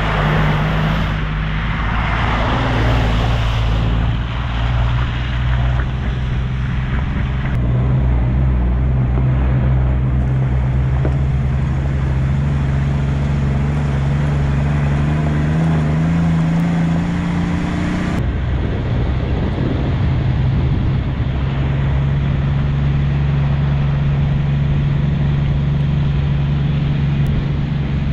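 A 4x4's engine running steadily while driving, with a rushing noise over it in the first few seconds. Its pitch creeps up and then drops suddenly about two-thirds of the way through.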